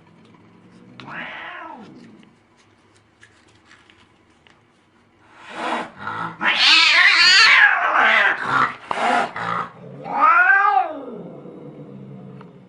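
Angry domestic cat caterwauling: a short rising-and-falling yowl about a second in, then after a pause a loud stretch of wavering screeching yowls mixed with harsh hissing. Another drawn-out yowl follows, then a low growl near the end.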